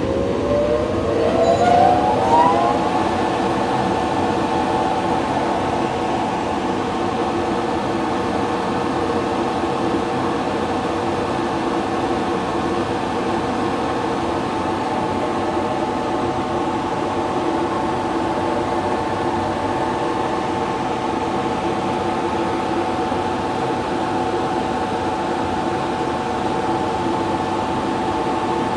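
Cage mill's two counter-rotating rotors running with no load: a whine rises in pitch over the first couple of seconds as the rotors come up to speed, then settles into a steady whir with several held tones. The loud noise comes largely from air churned between the two rotors.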